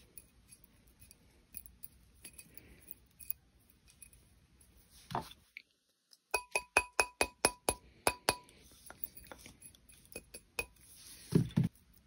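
Rawhide mallet tapping a copper wire ring on a steel ring mandrel to true it round: a quick run of about ten taps, each with a short metallic ring, then a few lighter scattered knocks and a couple of dull thumps near the end.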